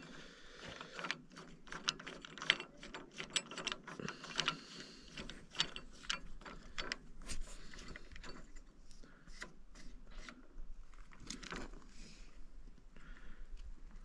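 Small hard plastic and metal parts clicking and rattling as a red plastic scale pointer and its black knob are handled and fitted onto a steel sawmill bracket. The clicks come irregularly, thick for the first several seconds and sparser toward the end.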